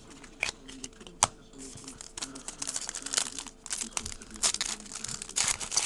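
Foil trading-card pack wrapper crinkling and tearing as it is opened and handled, in a dense run of small crackles that picks up after the first second or so.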